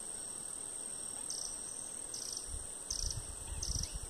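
Insects droning with a steady high-pitched buzz, joined about a second in by a chirping call repeated about twice a second. Low rumbling knocks come in during the second half.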